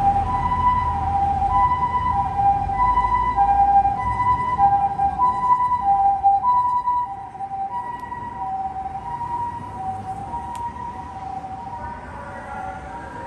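Japanese ambulance siren sounding its two-tone hi-lo call, alternating between a higher and a lower note over and over. It grows fainter about halfway through.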